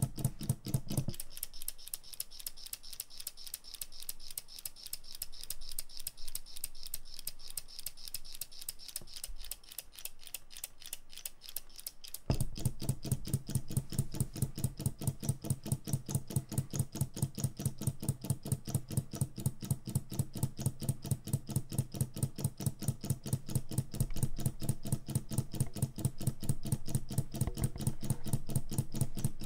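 3D-printed PLA single-cylinder solenoid engine running, its solenoid and switch clicking rapidly and evenly with every stroke. Its heavier low hum drops away about a second in and comes back suddenly just after twelve seconds, while the clicking carries on.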